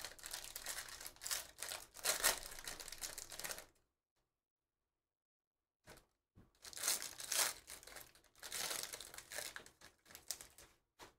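Foil trading-card pack wrappers being torn open and crinkled by hand, a crackling rustle in two stretches with a dead-silent gap of about two seconds in the middle.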